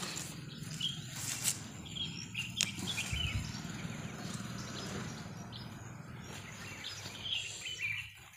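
Small birds chirping now and then over a steady rustle of leaves and phone-handling noise, with a couple of sharp clicks early on.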